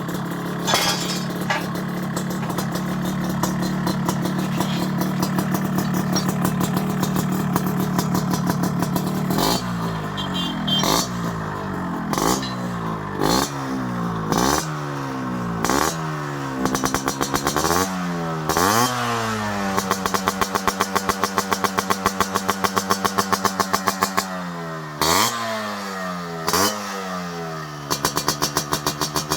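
Yamaha RX100's two-stroke single-cylinder engine idling steadily, then blipped repeatedly, about once a second, each rev rising sharply and dropping back to idle. It settles to idle again, then takes a few more blips near the end.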